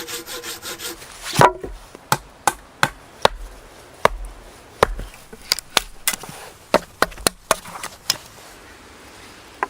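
Wood being chopped: about fifteen sharp, irregularly spaced blows, the hardest one early, then a pause with a single last blow near the end.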